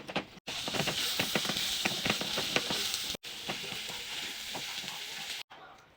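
Kitchen sounds in short cut-together clips: a steady sizzling hiss full of crackles and clicks for about two and a half seconds, then a quieter stretch of scattered spoon clicks as the fish filling is stirred.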